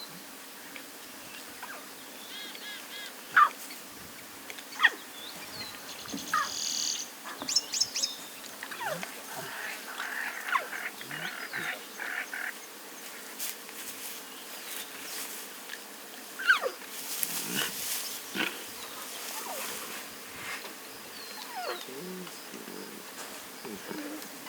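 Lions and their cubs feeding: scattered short high-pitched calls and sharp clicks and crackling noises of eating, over a faint steady bush background.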